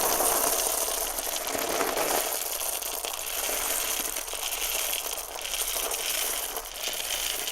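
Roasted espresso coffee beans spilling out onto the ground: a dense, continuous rattle of many small hard beans, a little stronger in the first couple of seconds.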